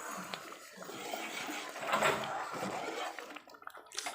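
A spoon stirring a thick rice-rava and rice-flour dough in a pot of boiling water, giving a steady scraping, squelching noise that swells about halfway through.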